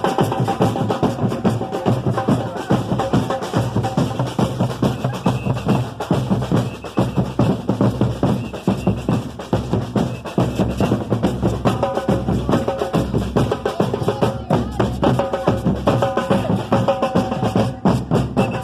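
Samba percussion band playing a dense, driving rhythm on bass drums, snare and other hand percussion. Sustained pitched notes come in over the drums in the second half.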